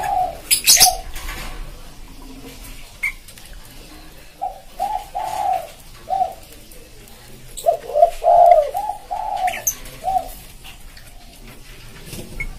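Spotted dove (tekukur) cooing: phrases of short, low, rounded coos, a brief one at the start, another about four and a half seconds in, and a longer, louder series around eight seconds in. A brief sharp noise cuts across just under a second in.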